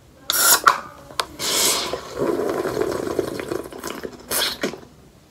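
A person drinking carbonated soda from a can: several short noisy sips and breaths, with a longer stretch of drinking in the middle.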